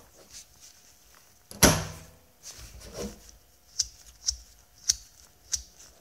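The two magnet-held anodized shells of a Haptic Coin fidget toy snapping together over its thrust roller bearing: one sharp metallic click with a short ring. Softer handling follows, then four light, high clicks evenly spaced a little over half a second apart.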